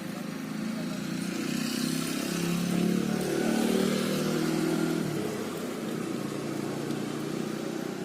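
A motor vehicle's engine running, growing louder for a few seconds and then easing back to a steadier level.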